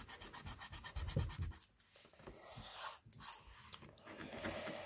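Faint scratching of a pencil on paper: rubbing out with its eraser, then short drawing strokes, with a soft bump about a second in.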